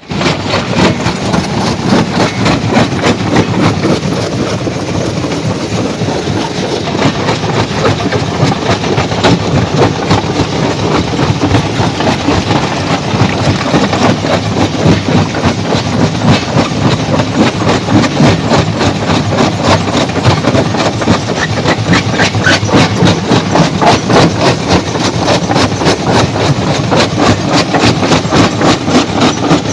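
A stone crushing machine running, with a dense, continuous rattle and clatter of rock being broken and tumbled over a steady heavy machine noise.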